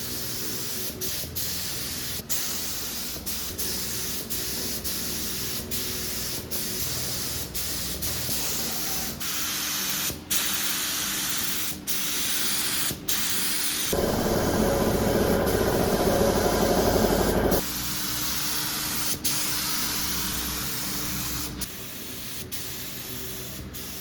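Paint being sprayed onto motorcycle body parts: a steady hiss broken by brief gaps about every second as the spray stops and starts again. About two-thirds of the way through there is a louder, fuller stretch of a few seconds.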